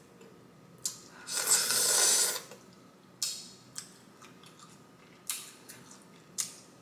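Close-up eating sounds of mussels in butter sauce. There is a loud wet slurp lasting about a second, starting about a second in, then several sharp mouth smacks and clicks spaced out over the rest.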